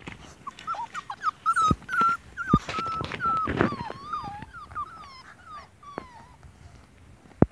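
A litter of puppies whining, many short high calls overlapping, thinning out after about four seconds. A few sharp knocks sound among them.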